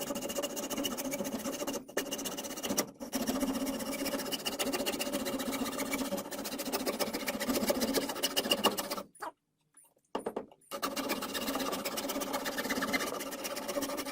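A small power saw running and cutting with a fast, even chatter. It stops briefly twice in the first few seconds, and stops for over a second about nine seconds in.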